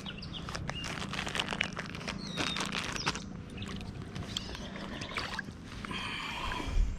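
Creek water sloshing and splashing irregularly as a wader-clad angler moves and reaches about in the shallows.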